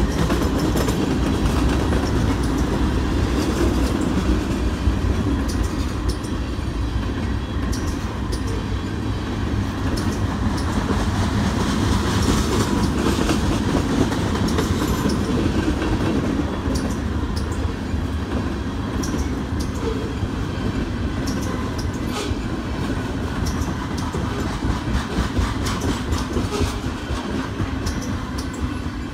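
Freight train cars rolling past on the rails: a steady low rumble of wheels with scattered clacks as the trucks pass over the track.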